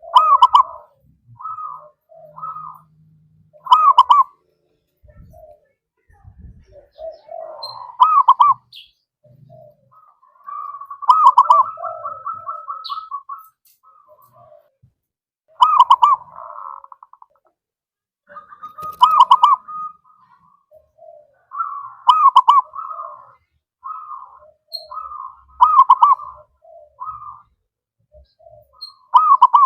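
Zebra doves (perkutut) cooing: loud bubbling coo phrases repeat about every three to four seconds, with softer coos between them and a rapid run of repeated notes about eleven seconds in.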